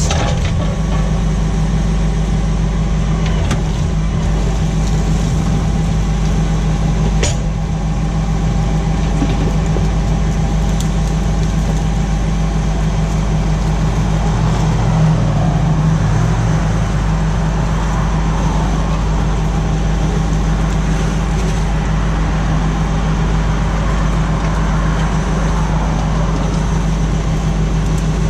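Tractor engine running steadily under load while pulling a plough, a constant low drone with one brief click about seven seconds in.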